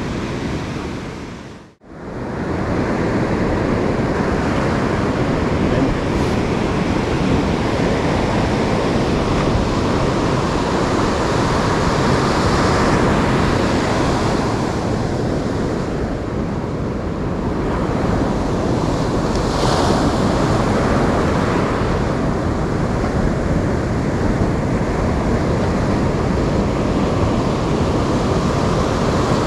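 Surf breaking steadily on a sandy beach, with wind rumbling on the microphone. The sound drops out briefly about two seconds in.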